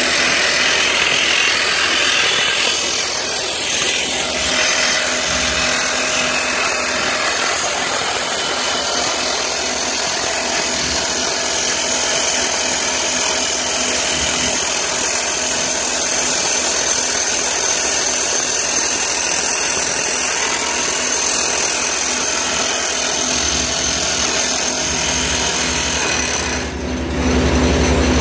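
Soosan hydraulic drill running, a loud steady mechanical noise. Near the end it dips briefly and gives way to a lower, steadier hum.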